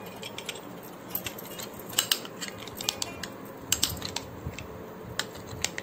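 Light clinks and taps of glass serving bowls and a steel spoon as the bowls are handled and moved, a scattering of short knocks with a small cluster about two seconds in and another near four seconds.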